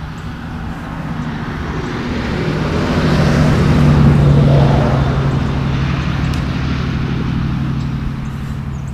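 A motor vehicle passing by: a steady engine hum with a rushing noise over it that grows louder to a peak about four seconds in, then slowly fades.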